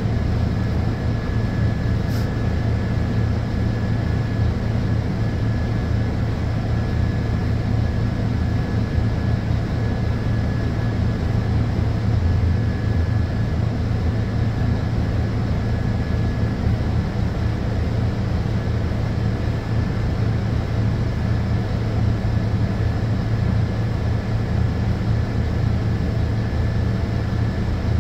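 Scania K230UB bus's rear-mounted five-cylinder diesel engine idling steadily, heard from inside the passenger cabin while the bus stands still. A faint steady high whine sits over the engine, and there is a single light click about two seconds in.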